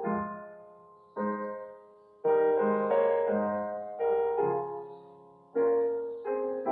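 Slow solo piano music: sustained chords struck one after another, each ringing out and fading before the next.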